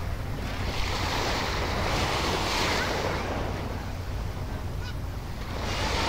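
Surf washing onto a sand beach in two swells, one about half a second in and one near the end, with a low rumble of wind on the microphone.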